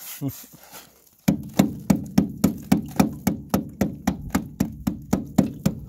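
A hand tool chipping the freezing-spray ice that coats an aluminum boat: quick, even blows, about three or four a second, starting a little over a second in.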